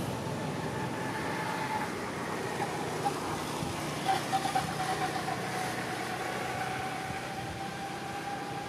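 A steady engine-like hum and rumble, as of a distant motor running, with a faint even tone over it and a few light clicks about four seconds in.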